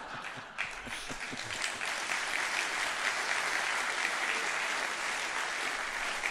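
Theatre audience applauding: many people clapping together, a dense, even clatter that fills in within the first second and holds steady.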